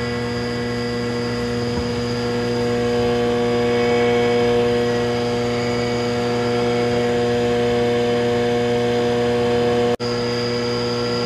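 3-in-1 wood planer's electric motor spinning the grooving cutter, running steadily with a hum and a whine of several steady tones and not yet cutting into wood. The sound cuts out for an instant about ten seconds in.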